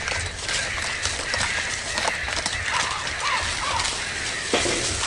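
Raccoon kits giving short, bird-like chirps, a quick run of them in the second half, over scratchy clicks as their claws grip tree bark.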